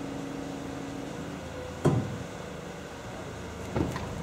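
Steady hum of a mobile crane's diesel engine running, its tone shifting a little past a second in, with two sharp metallic clanks about two seconds apart from work on the rail snowplow's wheelset.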